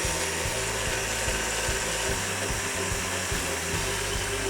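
Stand mixer running steadily at high speed, its whisk whipping cream in the bowl, over background music.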